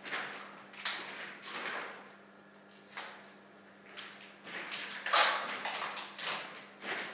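Irregular short scraping and rustling strokes, a cluster of them about five seconds in, over a steady low electrical hum.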